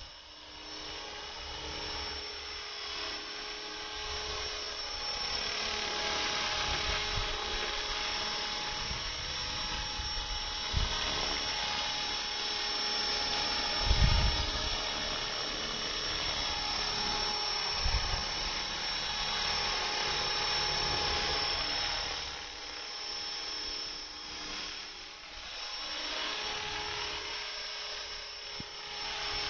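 A 450-size electric RC helicopter in flight: a steady high whine of motor and rotor that swells and fades as it moves about. A few short, dull low thumps, the loudest about halfway through.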